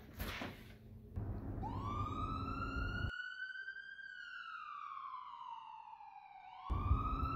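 Emergency vehicle siren wailing: it rises over about two seconds, falls slowly, then rises again near the end, over a low rumble that cuts out suddenly about three seconds in and returns near the end. A couple of clicks come just before the siren starts.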